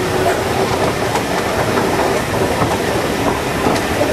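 Railway carriage running along the line, heard from on board: a steady rumble of wheels on the rails with a few faint clicks.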